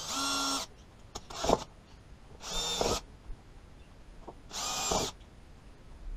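Cordless drill boring screw holes through masking tape into a plastic battery box lid, in short half-second bursts of steady whine, three of them with a briefer burst between the first two.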